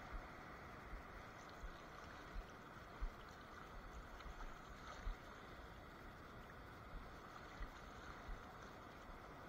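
Faint, steady rushing of water, broken by soft low thumps every second or so.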